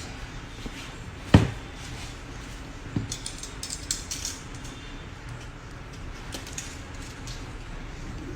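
Phone retail box being handled during unboxing: a sharp knock about a second and a half in, a lighter knock about three seconds in, then faint scraping and rustling of the packaging.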